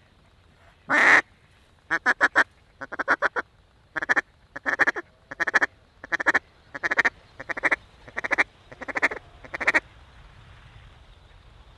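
Loud mallard quacking: one long quack about a second in, then a run of quick groups of two to four short quacks, roughly one group every three-quarters of a second, stopping near the end.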